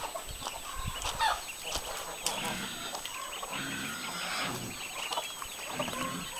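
Chickens clucking and calling, a run of short, varied calls.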